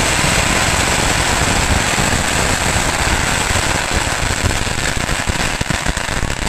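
A long string of Chinese firecrackers going off in a dense, continuous crackle. About four seconds in it starts to break into separate bangs that thin out as the string burns down.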